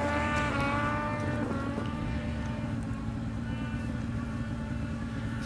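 Ski-Doo snowmobile engine running hard at high revs up a hill, its high whine sagging slightly in pitch over the first second and a half and then fading away. A steady low hum lies underneath.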